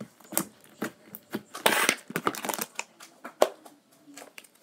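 Gold slime in a clear plastic tub being handled and tipped: a string of short sticky clicks and crackles, densest a little under two seconds in, with one sharp click about three and a half seconds in.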